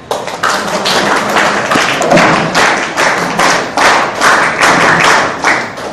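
Audience applause with loud claps close by, in an even beat of about three claps a second, starting suddenly.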